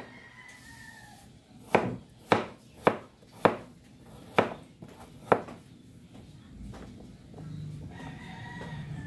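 Large kitchen knife chopping chayote on a cutting board: six sharp chops, about one every half second, then they stop. A faint high call sounds in the background at the start and again near the end.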